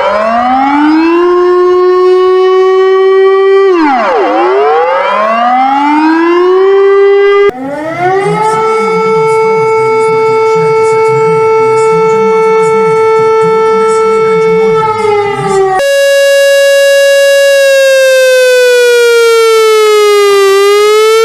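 Civil defence warning sirens played one after another. A siren winds up and holds, drops and winds up again about 4 seconds in. It is cut off by a steady siren tone over a rough low rumble, and about 16 seconds in a third siren tone holds, sags in pitch and rises again near the end.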